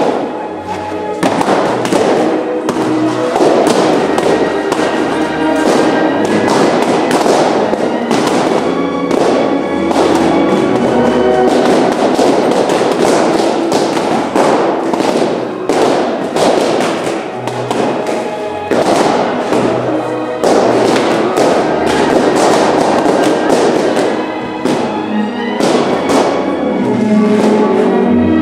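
Music playing with many sharp, irregular pops throughout: balloons bursting.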